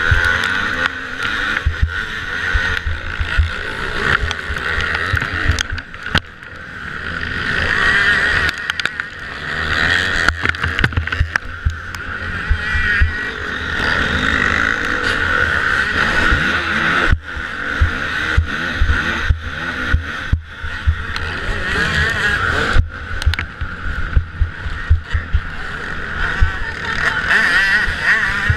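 Engine of a Kawasaki motocross bike heard from onboard while racing, revving up and down without a break, with a few brief dips in level.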